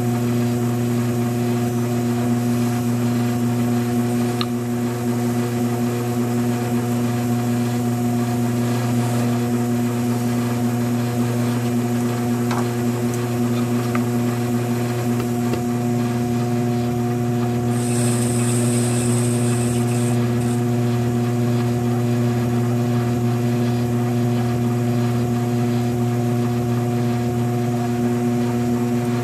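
Electric potter's wheel motor running at a steady speed, a constant even hum. A brief high hiss sounds about two-thirds of the way through.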